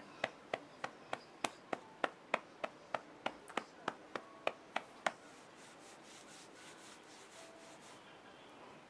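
A hand patting a newborn baby's back in a steady rhythm, about three pats a second, to bring up a burp. The patting stops about five seconds in.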